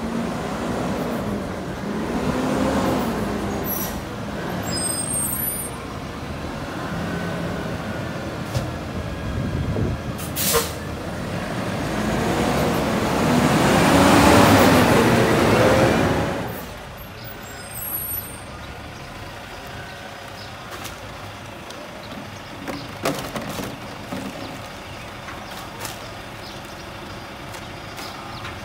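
Natural-gas front-loader garbage truck driving past, its engine pitch rising and falling, loudest a little past the middle, with a short hiss of air brakes about ten seconds in. After that the engine idles quietly while plastic recycling bins clatter now and then.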